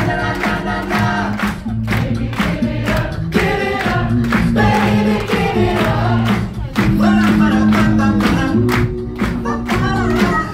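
Live a cappella performance by a vocal group singing through microphones: several voices in close harmony over a sustained sung bass line, with a steady beatboxed beat of about two strokes a second.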